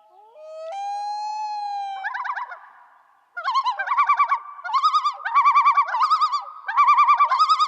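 A loon calling: one long wailing note that steps up in pitch. About three seconds in, it breaks into a run of rapid quavering tremolo calls repeated several times.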